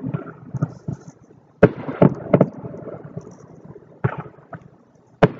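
Consumer fireworks going off: a string of sharp bangs at uneven intervals, each trailing off in echo. The loudest come a second and a half to two and a half seconds in and again near the end.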